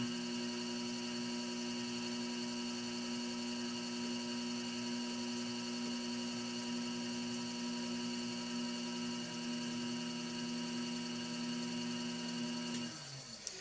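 Electric potter's wheel motor running with a steady hum and whine while the wheel head spins. Near the end the pitch drops and the sound dies away as the wheel slows.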